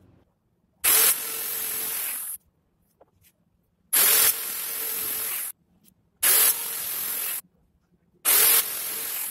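Skil jigsaw cutting through a wooden broomstick dowel in four short runs of about a second and a half each. Each run starts louder and then settles into a steady cutting noise.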